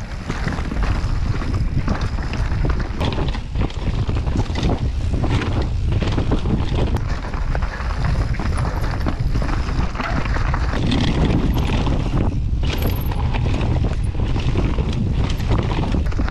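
Wind buffeting a camera microphone on a moving mountain bike, over a steady low rumble with irregular knocks and rattles from the bike running over the trail.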